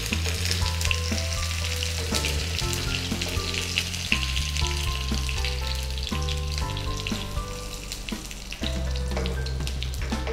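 Mustard seeds and curry leaves sizzling and spluttering in hot coconut oil in a small frying pan, a steady crackle full of sharp little pops as the seeds burst: a tempering (tadka) being fried.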